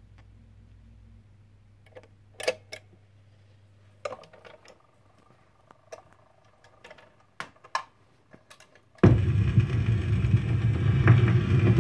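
A few scattered clicks and knocks from the record player and its tonearm. About nine seconds in, the stylus drops onto a 78 rpm shellac record, and the lead-in groove gives a sudden loud, steady hiss and crackle of surface noise.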